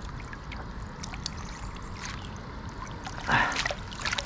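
Water sloshing and dripping as a landing net is worked in shallow water to let fish swim out, with one louder splash about three seconds in.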